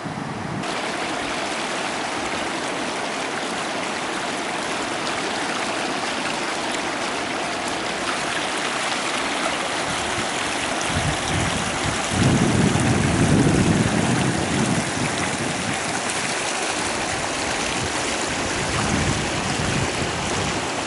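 Steady rushing of a swollen, muddy river in flood, water pouring over and around rock. About twelve seconds in, a louder low rumble of wind on the microphone lasts for about three seconds.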